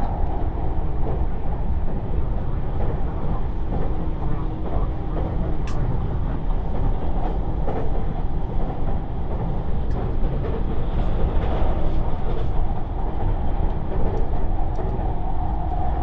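Cabin running noise of a JR East 651 series electric limited express train at speed: a steady low rumble of wheels on rail, with one sharp click about six seconds in.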